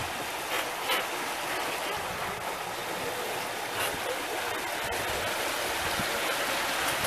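Steady rush and splash of choppy water along the hulls of a solar electric catamaran moving through waves, with a few small splashes standing out.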